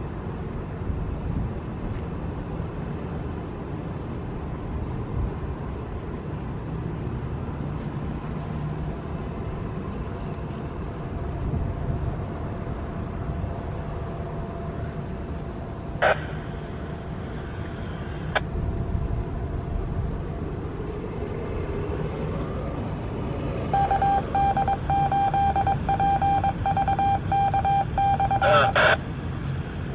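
Steady outdoor traffic and wind noise. About six seconds before the end a loud steady tone with overtones starts, broken by a few brief dropouts, and lasts about five seconds before cutting off abruptly.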